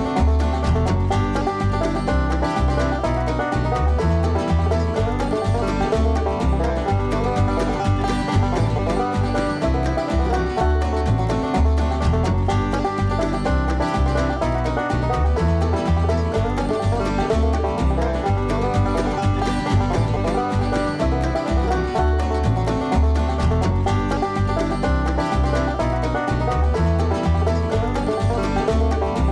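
Bluegrass-style string-band music with plucked strings over a steady bass beat.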